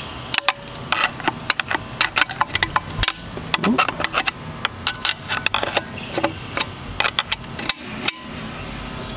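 Screwdriver tip scraping and clicking against a steel snap ring and its groove in a Turbo 400 transmission case as the ring is pried out a little at a time. The clicks and scrapes come irregularly, with one louder knock about three seconds in.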